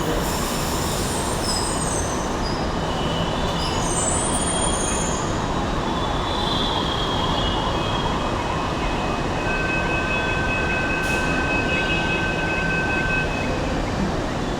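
Mumbai Metro train running: a steady rumble of wheels on the track, with short high-pitched wheel squeals in the first few seconds and a steady high whine from about ten to thirteen seconds in.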